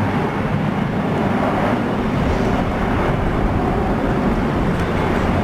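Airbus A320 airliner's jet engines at takeoff power as it climbs out after takeoff: a steady, loud, deep rumble of jet noise.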